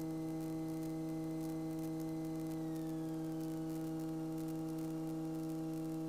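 Steady electrical hum on the light aircraft's intercom audio, with a faint high whine that slides down in pitch about three seconds in.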